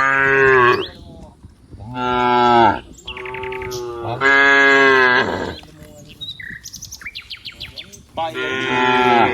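Cows mooing: about five loud moos in a row, each lasting under a second to about a second, with a gap of several seconds before the last one.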